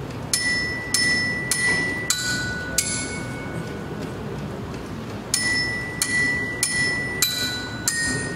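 Tuned metal percussion, bell-like bars struck with a mallet, playing two short phrases of five ringing notes about half a second apart. The fourth note of each phrase is lower.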